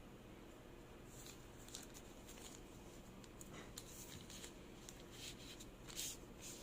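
Faint rustling and scattered light clicks of hands handling things, starting about a second in and strongest near the end, over a low steady room hum.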